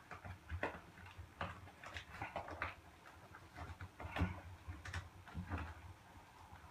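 White plastic shower drain clamping ring being handled and pressed down into the drain base over a rubber shower pan liner: irregular clicks, taps and scuffs of plastic against plastic and liner, with a sharper knock about four seconds in.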